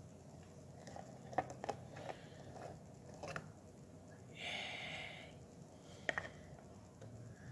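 Faint handling noises: a few light clicks and taps, and a short rustling squish a little past halfway.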